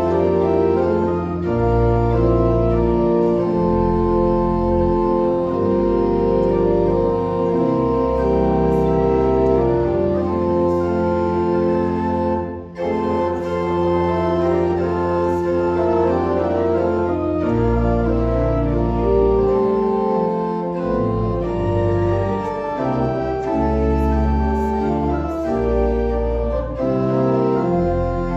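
Church organ playing a carol in sustained chords over a deep pedal bass, with a brief break between phrases about 13 seconds in.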